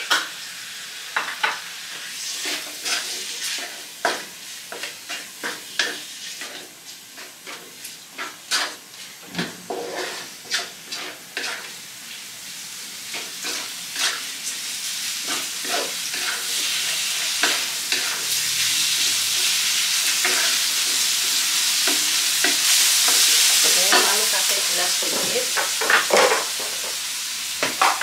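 Minced beef, diced potato and carrot sizzling in a wok while a wooden spatula scrapes and knocks against the pan in many quick strokes. The sizzling grows louder in the second half.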